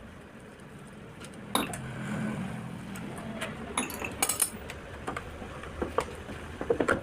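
Metal tools and engine parts clinking and knocking at irregular intervals during disassembly of a motorcycle engine, a few strikes with a short metallic ring.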